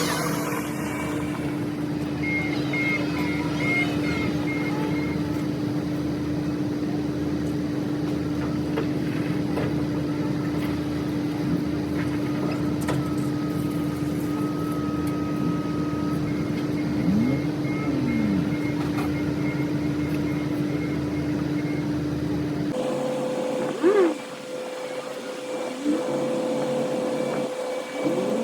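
Vehicle engine idling steadily, with a reversing alarm beeping in two spells of evenly repeated beeps. About 23 seconds in, the sound changes abruptly to a quieter steady hum with a higher tone.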